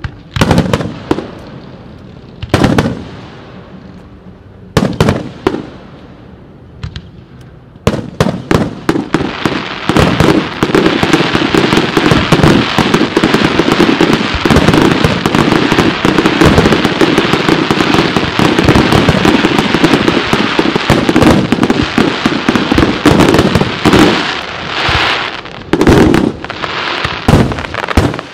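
Fireworks display: a few separate aerial shell bursts go off, then from about eight seconds in a dense barrage of rapid bangs and crackling keeps up, thinning again to separate bangs near the end.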